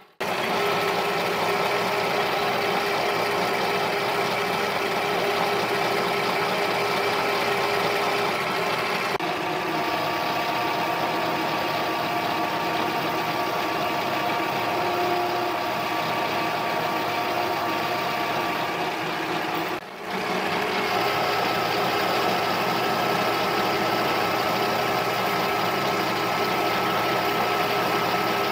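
A mini lathe running under cut, its tool turning down the outside diameter of a 6061 aluminium pulley blank on an arbor. A steady motor-and-gear whine with several held tones, dipping briefly about two-thirds of the way through.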